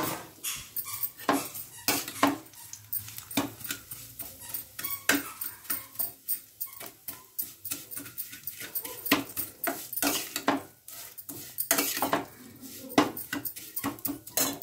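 A long steel spoon stirring and scraping thin vermicelli (sewai) around a steel kadhai as it roasts in ghee, giving irregular clinks and scrapes several times a second.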